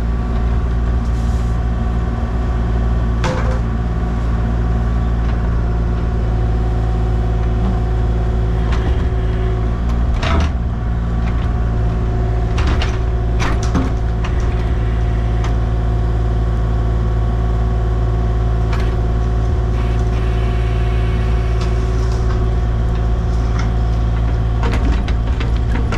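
Heavy engine running steadily at a constant speed, with a few sharp knocks and clanks over it.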